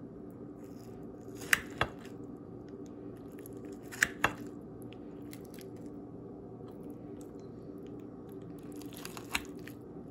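A table knife cutting into baked omelette-stuffed bell peppers on a china plate, with a few sharp clicks and crunches: a pair about a second and a half in, another pair about four seconds in, and one near the end. A steady low hum runs underneath.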